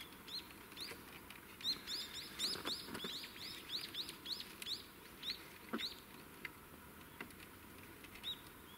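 Small songbird calling: a quick run of short, high chirps about three a second, starting about two seconds in, then a few single chirps. A few faint clicks come in between.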